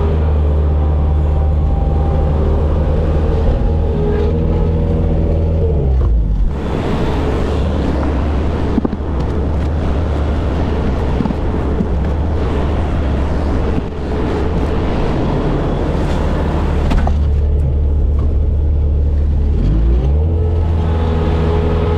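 Bobcat skid steer's diesel engine running. Its steady note drops about six seconds in and gives way to a rougher, noisier sound, then the steady note returns, rising in pitch, near the end.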